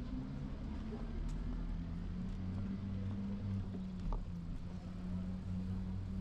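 City street sound heard from a moving bicycle: a steady low hum of traffic with a single light click about four seconds in.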